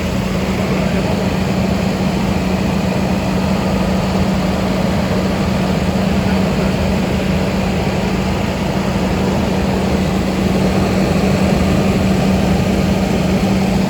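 Car engine running with the air conditioning switched on: a loud, steady drone with one strong, unchanging low hum.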